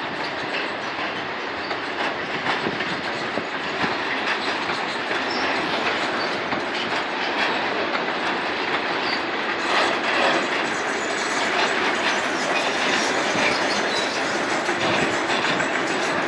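Freight train passing, hauled by an ET41 twin-unit electric locomotive and made up of covered steel wagons. The wheels clatter over rail joints and the wagons rumble steadily as the train goes by.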